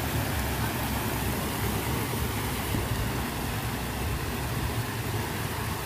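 Water rushing steadily down a series of small stone-lined step cascades.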